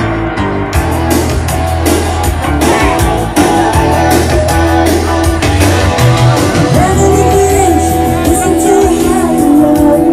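Loud rock music with singing, guitar and a steady drum beat.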